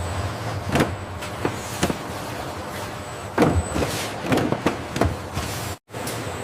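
Factory packaging machinery running steadily, with scattered clacks and knocks. The sound cuts out for an instant near the end.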